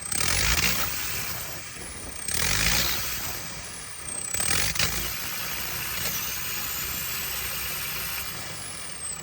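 JCB 220 Ecomax diesel engine running unevenly, misfiring. It surges three times about two seconds apart, each surge followed by a high whistle falling in pitch, then runs steadier.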